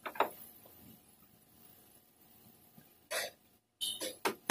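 Short, scattered rubbing and tapping sounds of gloved hands working on a pickup truck's front fender and bumper: a few quick taps at the start, a longer swish about three seconds in, and a cluster of quick taps near the end.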